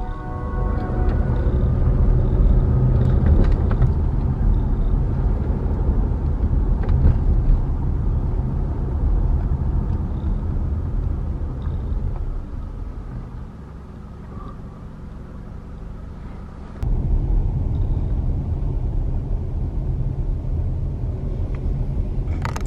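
Steady low rumble of a car's engine and tyre road noise, heard from inside the moving car's cabin. It grows quieter for a few seconds past the middle, then returns abruptly at full level.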